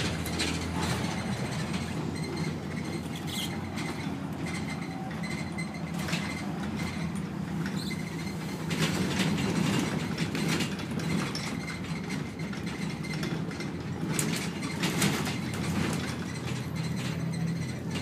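Volvo B7TL double-decker bus heard on board from the upper deck, its diesel engine droning steadily as it drives along. Scattered clicks and knocks come from the bodywork and fittings, and the noise swells briefly twice as it pulls harder.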